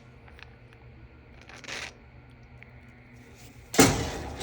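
Handling noise from greasy dryer parts: a brief rubbing scrape, then a sharp knock near the end.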